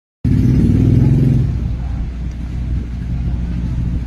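A motor vehicle engine running with a steady low rumble, loudest for the first second and a half and then easing slightly.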